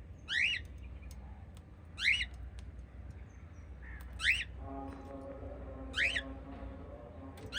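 Small pet parrot giving a loud, sharp call about every two seconds, each a quick sweep in pitch. A steady hum starts about halfway through.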